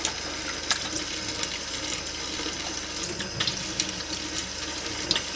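Kitchen tap running steadily into a stainless steel sink, the stream splashing over hands holding a squid, with a few small clicks and splashes.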